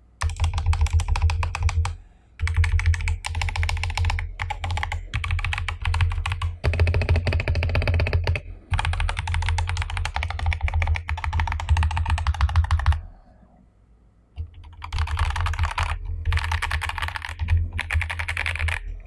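Royal Kludge RK68 mechanical keyboard with stock MMD Honey Tactile switches being typed on fast: dense runs of key clacks in bursts of a few seconds, with short breaks and one longer pause about two-thirds of the way through.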